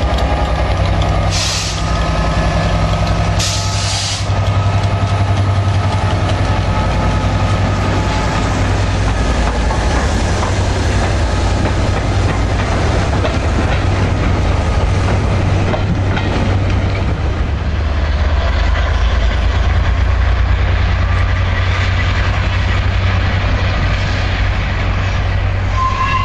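Class 67 diesel locomotive, its EMD V12 two-stroke engine running, passes close at low speed towing steam locomotive 60163 Tornado and a coach; the wheels clatter over the rail joints as the train goes by. Two short hisses come about one and a half and three and a half seconds in.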